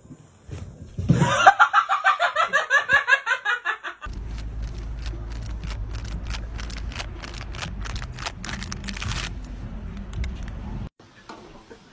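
A person laughing hard in a fast run of pitched bursts, about eight a second. After about four seconds this gives way to a steady low rumble of wind on the microphone with a run of sharp clicks, which cuts off abruptly near the end.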